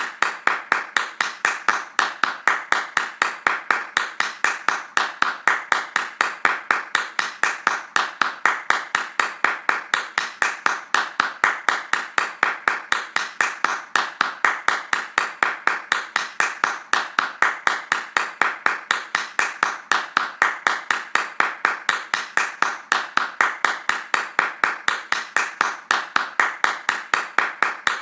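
Hands clapping fast in a steady, even rhythm without a break.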